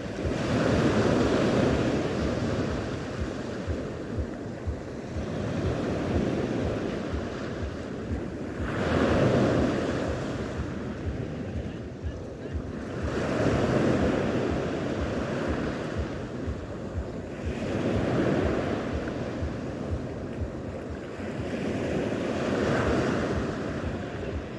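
Sea waves washing onto the shore, the noise swelling and falling back about every four to five seconds, with wind buffeting the microphone.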